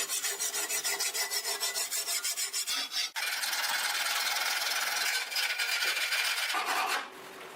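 Hand file rasping across a high-carbon steel sword blade in quick repeated strokes, changing about three seconds in to a steadier, continuous rasp that stops shortly before the end.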